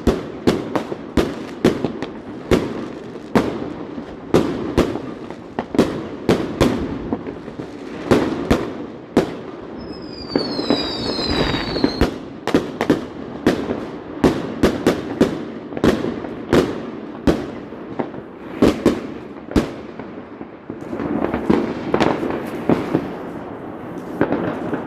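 New Year fireworks going off: a rapid, irregular run of sharp bangs over steady crackling. A few whistling tones come about halfway through.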